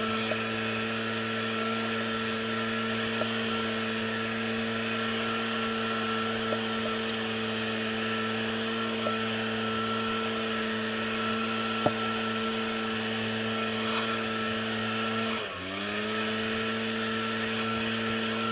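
Small petrol engine of lawn-care power equipment running steadily at high speed. About fifteen seconds in its pitch dips sharply and climbs back within a second, as under a moment of load or a throttle change.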